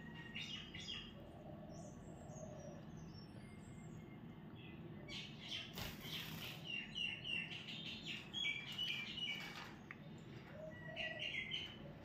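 Parakeets chirping: a few short high calls near the start, a longer run of quick repeated chirps through the middle, and another short burst near the end.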